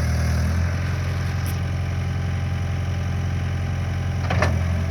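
Skid steer engine running steadily, a little louder for about the first second, then holding an even drone.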